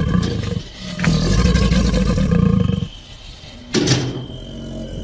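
Alligator growling or bellowing: two long, low rumbling calls of about two seconds each, one after the other, then a single sharp knock just before the end.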